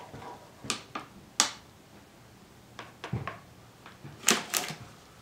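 Plastic funnel and oil bottle being handled and lifted out of a lawn mower's oil fill neck: a handful of sharp clicks and knocks, the loudest about a second and a half in and a close pair a little after four seconds.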